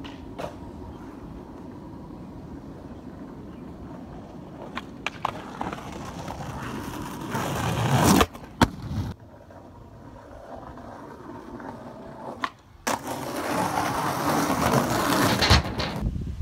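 Skateboard wheels rolling over rough pavement, the rolling growing louder as the board comes close and passes, with a few sharp clacks of the board. After a sudden change the rolling starts up again and swells louder.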